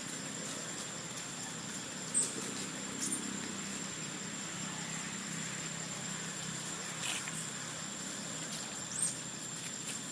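Steady outdoor background: a constant thin high whine over a low hum, with a few brief high chirps or clicks about two, three and nine seconds in.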